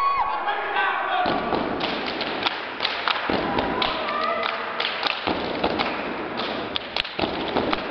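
Step team stepping on a hardwood gym floor: quick runs of sharp stomps and hand strikes, ringing in the large hall.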